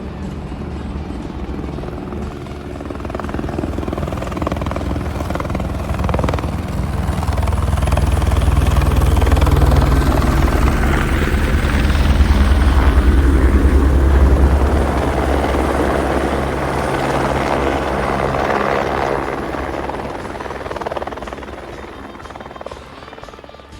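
Helicopter rotor chop and engine, swelling gradually to a peak near the middle and then fading away, as a helicopter flies in and passes.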